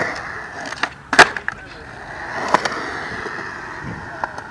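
Skateboard wheels rolling on concrete, with sharp wooden clacks as the board hits the ground, the loudest about a second in and another about a second and a half later.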